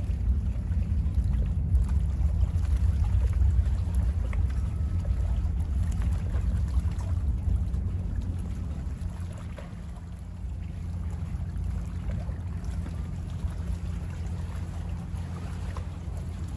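Small bay waves lapping against the shore, under a steady low rumble of wind on the microphone that eases a little about ten seconds in.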